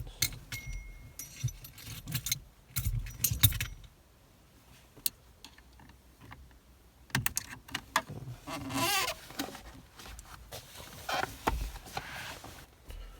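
Metal clicks, clinks and rattles as a steering wheel is worked loose and pulled off its column. The clicks come in clusters, with a brief wavering squeak about nine seconds in.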